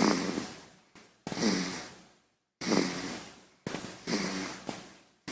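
A child snoring: four short snoring breaths about a second and a half apart, each starting sharply with a low rattle and fading away.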